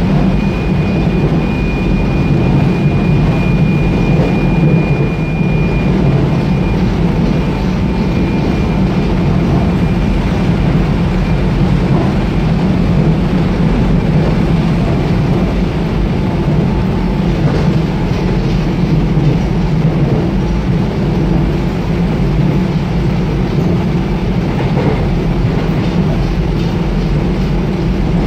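Seoul Metro Line 1 subway car running at speed, heard from inside the car: a steady low rumble of wheels on rail. A faint high whine fades out over the first several seconds, and a few light clacks come later.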